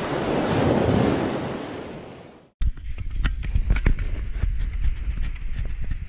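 A wash of surf noise swells and fades over about two and a half seconds, then cuts off. Then wind buffets an action camera's microphone, with irregular soft thumps of footsteps on beach sand.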